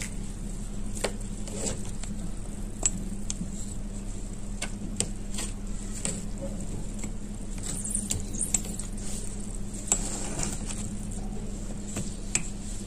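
Metal knife stirring and pressing soaked gray clay and multani mitti into a paste in a plastic tub: irregular wet clicks and scrapes, one or two a second, over a steady low hum.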